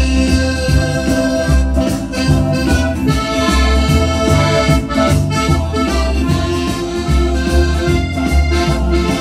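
Piano accordion and electric guitar playing an upbeat rock-style tune over a steady, pulsing bass beat.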